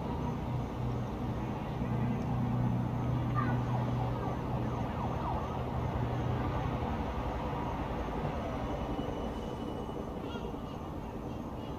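Distant town traffic: a passing vehicle's low engine hum swells about two seconds in and fades out over the next few seconds, over a steady background rumble, with faint wavering tones in the middle.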